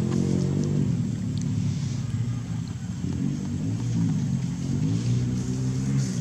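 An engine running steadily, a low hum whose pitch wavers slightly up and down.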